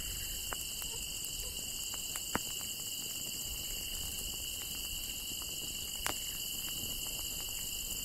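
A steady chorus of crickets, with scattered sharp crackles and pops from a small campfire, two louder pops about two and a half and six seconds in.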